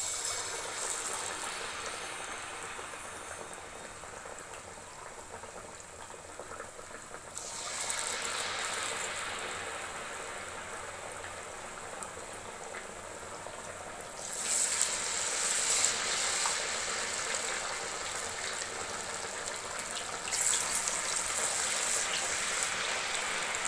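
Batter-dipped banana slices deep-frying in hot oil in a kadai: a steady hissing sizzle that gets louder in steps, about 7, 14 and 20 seconds in.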